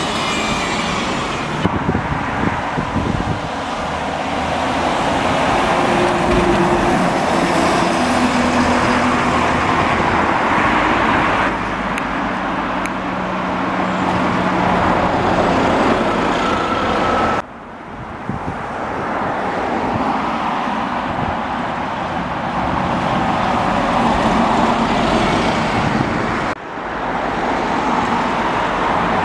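Road traffic noise: vehicles running and passing with a steady engine hum, changing abruptly a few times where separate shots are joined.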